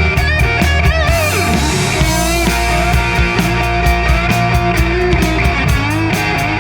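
Rock band playing an instrumental passage: electric guitar lead with bent, wavering notes over steady drums and bass.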